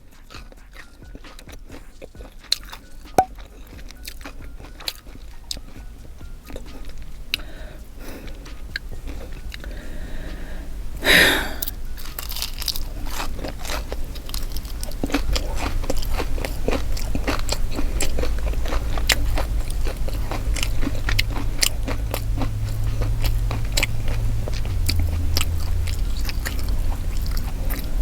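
Close-miked crunching bites and chewing of fried, biscuit-battered shrimp: many crisp crackles, with a loud crunchy bite about eleven seconds in.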